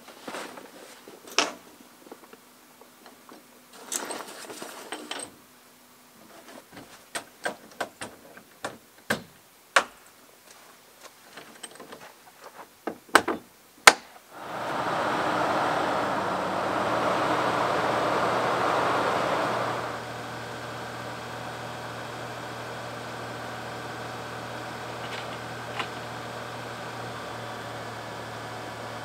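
Scattered clicks, knocks and clatters of camp gear being packed up. About halfway through, the truck starts running with a loud steady rush for about five seconds, which then drops to a lower steady hum.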